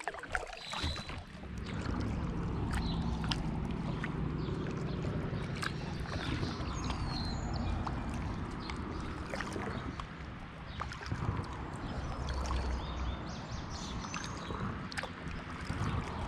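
Kayak paddling on a slow river: paddle strokes and water drips, heard as scattered short ticks and splashes. Under them runs a steady low rumble.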